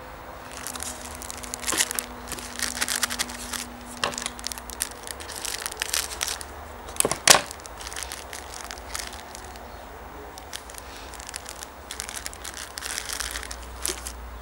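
Plastic packaging of replacement lighter cotton crinkling and tearing as it is opened and the cotton wadding pulled out, with one sharp crack about halfway through. Softer rustling of the cotton and plastic follows near the end.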